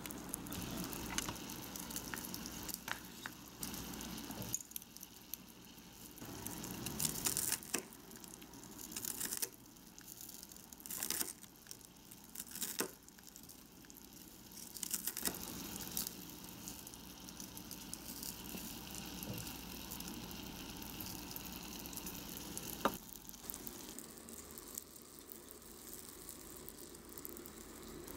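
Small-scale cooking sounds: a tiny pan of onions in broth simmering with a faint sizzle, and a knife cutting through a small breaded pork cutlet on a wooden board. Irregular sharp knocks and scrapes come in the middle.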